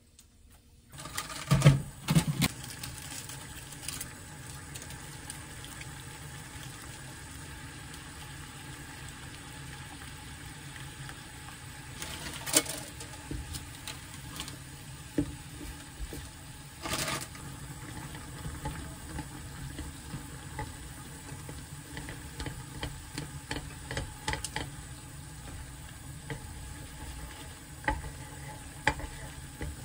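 Instant ramen broth bubbling at the boil in a frying pan, starting about a second in, with wooden chopsticks stirring and lifting the noodles in the second half. There are small clicks and a few sharp knocks, the loudest about two seconds in.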